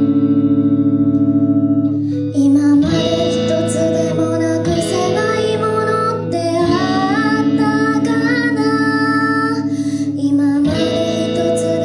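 Live band music in a small room: an electric guitar with effects holds ringing chords, and from about two seconds in a female voice sings a melody over them.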